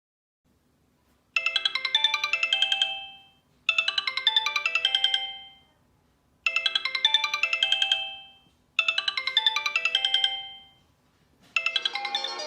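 Sony Xperia stock ringtone: a short, bright electronic melody of quick plucked notes, played four times with a short pause between each. Near the end a different ringtone tune begins.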